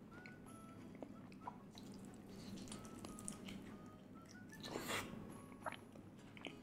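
Faint mouth sounds of someone eating fried chicken coated in crushed Super Ring snacks, with scattered soft clicks and a brief louder noise about five seconds in.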